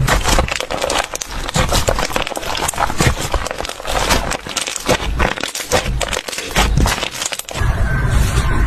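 Slime being squeezed and poked by hand, giving a dense run of crackling, popping clicks. About seven and a half seconds in, it turns to a softer, smoother squelch.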